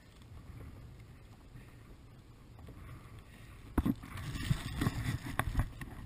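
Water lapping against a plastic kayak hull under a low wind rumble. About four seconds in, a run of sharp knocks and splashy noise begins.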